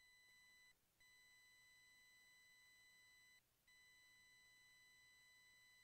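Near silence with a faint, steady electronic tone that holds for about two and a half seconds at a time, breaking off briefly twice.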